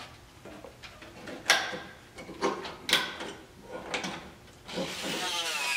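Scattered knocks, clicks and clatter of tools being handled at a car's bodywork, the loudest a sharp clack about a second and a half in. Near the end a rising whirring noise starts.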